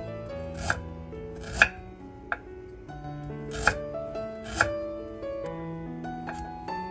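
Knife chopping through fruit onto a cutting board: about six sharp, irregularly spaced strokes, the loudest about a second and a half in, over soft piano music.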